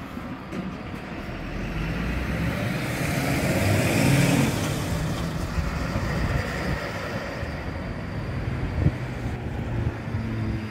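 A tow truck drives past on the street, its engine and tyres swelling to loudest about four seconds in, while an Alstom NGT DX DD low-floor tram rolls in toward the stop. A single sharp knock comes near the end.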